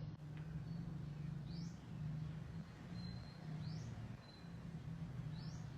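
Low steady hum with a small bird's short rising chirp, repeated three times about two seconds apart.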